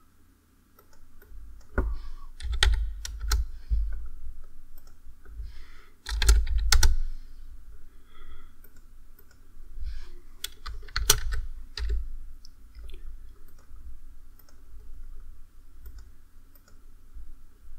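Computer keyboard typing in three short bursts of keystrokes, with scattered lighter clicks between them, as new values are entered into settings fields.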